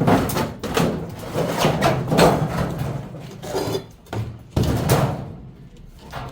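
Repeated knocks and clanks of a top-loading washing machine being taken apart by hand, coming at an uneven pace. The loudest strike is about five seconds in, after which the sound tails off.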